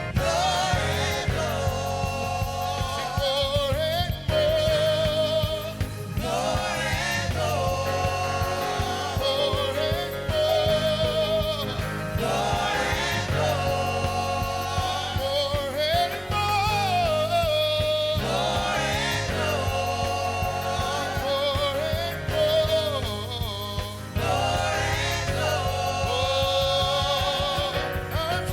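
Gospel music with singing, backed by bass and drums.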